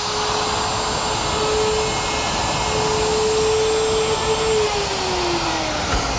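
Electric router with a 1/2-inch straight bit running at full speed while cutting a stopped groove in a board, with a steady high whine. About four seconds in, its pitch starts to fall as the motor winds down.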